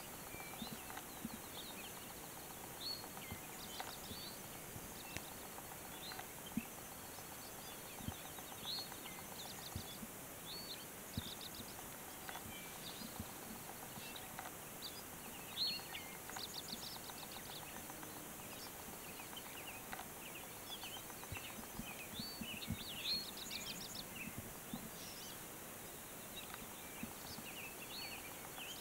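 Songbirds chirping and trilling: many short high calls and quick trills scattered throughout, over a steady faint hiss, with occasional soft low thumps.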